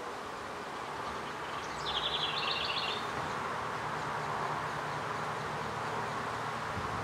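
Honey bees buzzing in a steady hum around an open hive of Saskatraz bees. About two seconds in, a bird sings a brief, rapid high trill over it.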